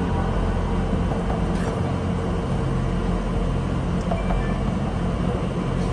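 Steady low rumble, with a few faint clicks now and then.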